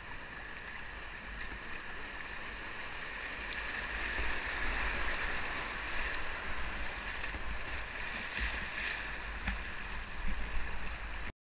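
Shallow low-water river rapids rushing past a kayak, heard close up from the boat. The rush grows louder about four seconds in as the kayak runs into broken white water, with a few short paddle splashes, then cuts off suddenly near the end.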